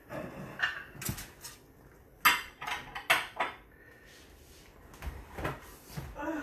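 Kitchen handling sounds: a handful of sharp clinks and knocks of dishes, utensils and a plastic bottle on a countertop as food is arranged on a plate, the loudest about two seconds in.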